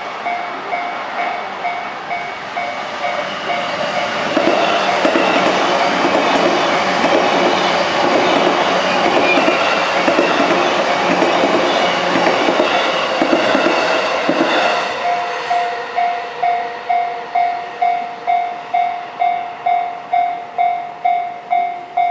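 Japanese level-crossing warning bell dinging steadily about twice a second. From about four seconds in, E233-series electric trains run over the crossing with loud running noise and rhythmic wheel clatter, mostly covering the bell. The trains clear about fifteen seconds in, leaving the bell dinging alone.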